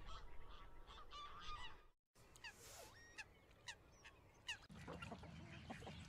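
Faint young geese (goslings) peeping in short, high, repeated calls. There is a brief dropout about two seconds in, after which the calls continue with short downward-sweeping notes.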